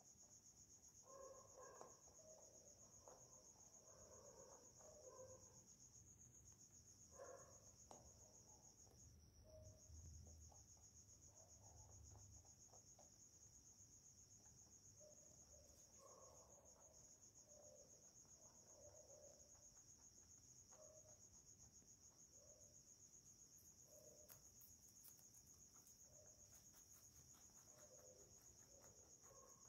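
Near silence: a faint, steady high-pitched chirring, with a rabbit's soft munching on leafy greens in short irregular bouts.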